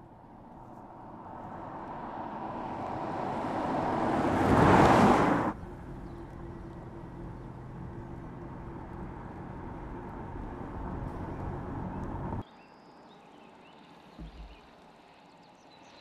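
A Mercedes-AMG EQE 53 dual-motor electric sedan approaching and passing close by: tyre and road noise swells to a loud peak about five seconds in, with a steady hum underneath, then drops abruptly. A steadier, quieter driving sound follows and cuts off suddenly past the midpoint, leaving faint background.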